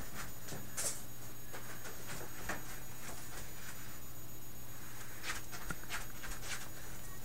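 Quiet room tone with a steady low hum. Faint scattered knocks and rustles come from someone moving about the room, with a small cluster near the end as a hat is handled and put on.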